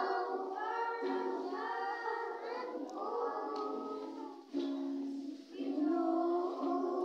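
Music: a song sung by a group of voices, with a steady sustained note underneath.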